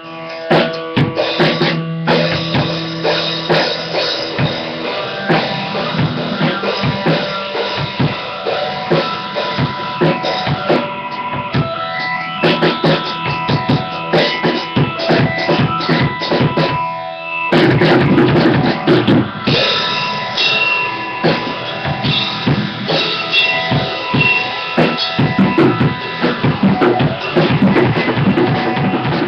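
Drum kit being played: quick, continuous beats on the bass drum, snare and cymbals, with some held pitched notes underneath. The playing gets denser and louder about two-thirds of the way through.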